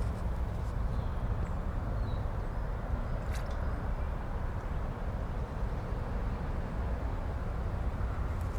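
Steady low rumble of a vehicle running, with one sharp click about three seconds in.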